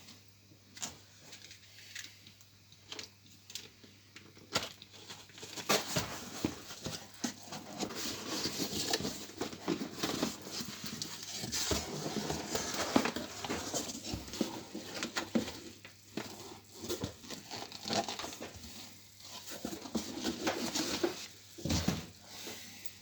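Irregular rustling, crinkling and tapping handling noise: a few scattered clicks at first, then a dense stretch of crackling, and a dull thump near the end.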